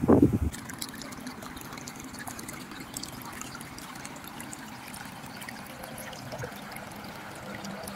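Shallow water trickling along the muddy edge of a rice paddy: a steady run dotted with many small splashes. A low rumble of wind on the microphone dies away about half a second in.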